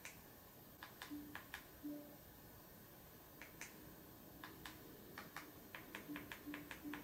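Small, sharp button clicks as a projector's settings menu is navigated. A few come spaced apart, then a quicker run of them near the end, with faint short low beeps among them.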